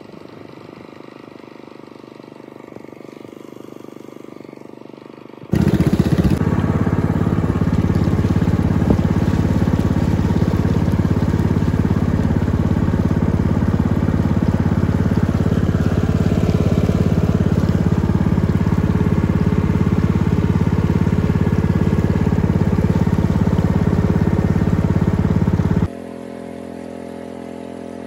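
Small boat's engine running steadily, loud and close from on board. It comes in suddenly about five seconds in over a quieter rumble, and drops abruptly to a lower steady hum near the end.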